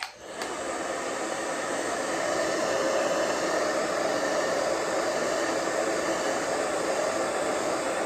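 Handheld hair blow dryer switched on with a click, coming up to speed over the first second or two and then blowing steadily, drying the glue under a wig.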